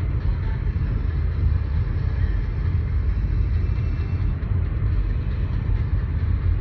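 Steady low rumble of a car driving on a dirt road, heard from inside the cabin.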